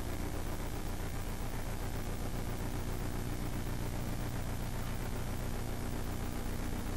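Steady low hum under a constant hiss, the background room tone of the open microphone, with no distinct sounds.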